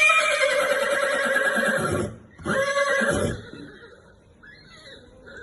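Horse whinnying: one long call slowly dropping in pitch, then a shorter second call about half a second later.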